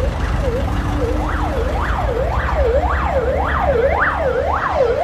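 Emergency vehicle siren yelping: a fast rise and fall in pitch, repeating a little under twice a second, over a low rumble of engine and traffic.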